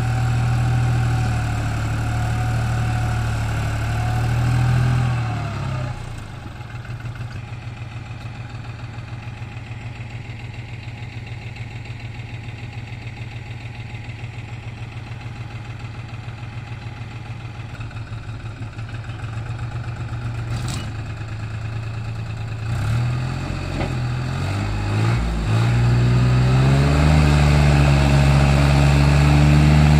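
A vehicle engine running hard, dropping to a quieter, fast-pulsing idle about six seconds in, then revving back up with rising pitch and running loudly near the end.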